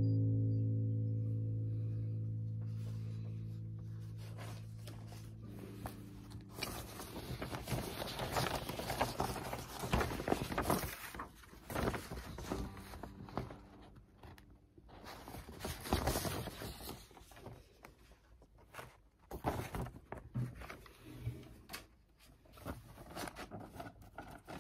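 An acoustic bass guitar note fades out over the first several seconds. After that come irregular rustling, scraping and knocks from things being handled and set up close to the microphone.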